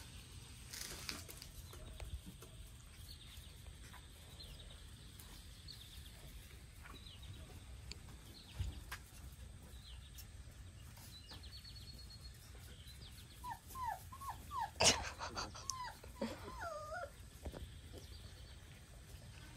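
Five-week-old Labrador puppies whimpering: a run of short, high, bending whines about two-thirds of the way through, with one sharp, louder sound among them.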